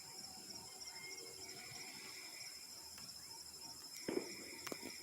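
Crickets chirping steadily in a fast, high-pitched trill, faint. A short knock about four seconds in, with a couple of faint clicks after it.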